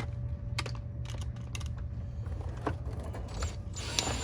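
Scattered small metallic clicks and rattles of bolts and washers being handled and fitted, with a short rasping burst near the end, over a steady low hum.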